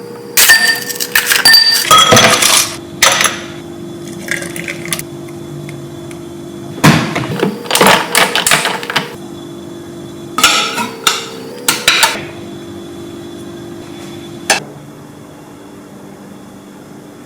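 Kitchen dishes, pans and utensils clattering and knocking in several bursts, ending with a single sharp click, over a steady low hum.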